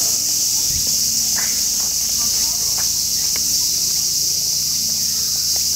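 A chorus of cicadas making a steady, high-pitched drone without pause.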